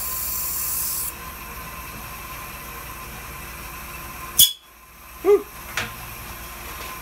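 Wood lathe running at low speed with a steady motor hum. For the first second there is a hiss of fingers rubbing on the spinning chokecherry cup, and a single sharp click comes about four and a half seconds in.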